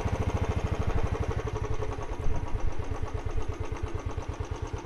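Royal Enfield motorcycle engine running at low revs with an even, pulsing beat.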